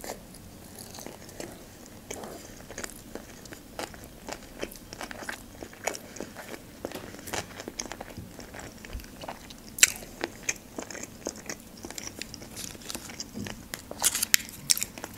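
Close-miked chewing of a mouthful of California sushi roll: soft wet smacks and small crunchy clicks throughout. A sharper click comes about ten seconds in, and a denser run of clicks near the end.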